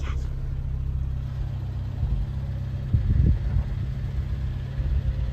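Car engine running with a steady low hum, and a brief louder rumble about three seconds in.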